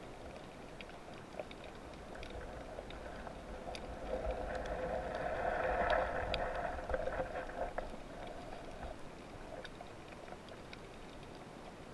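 Underwater ambience among seagrass: faint scattered clicks and crackles, with a droning hum that swells from about four seconds in, peaks midway and fades out after about eight seconds.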